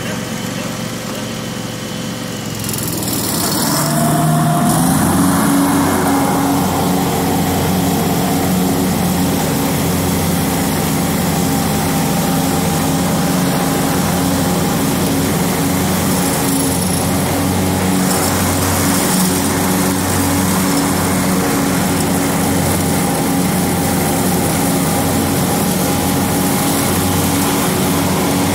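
John Deere X724 lawn tractor's liquid-cooled V-twin engine revving up about three seconds in, then running steadily at working speed while the tractor drives across the grass.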